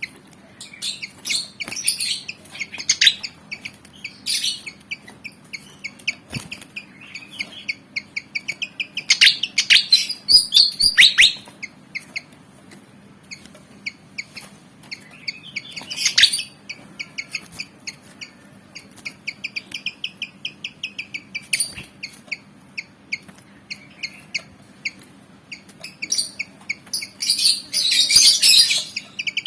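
Pied fantail (kipasan) calling in rapid series of sharp chirps, several loud chattering bursts among them, the excited calling of a bird worked up and eager to fight. A faint steady low hum runs beneath.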